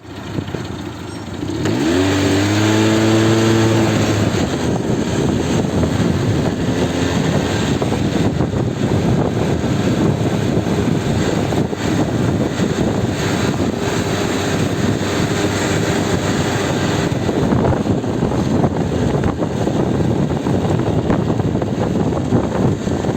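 Steady wind noise and rough surf, with a motor vehicle's engine revving up and holding for a couple of seconds near the start.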